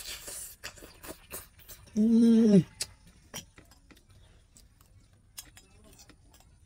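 Eating sounds: a bite of fish and scattered small clicks of chewing and a metal spoon against a ceramic plate. About two seconds in, a short steady vocal hum of about half a second, dropping in pitch as it ends, is the loudest sound.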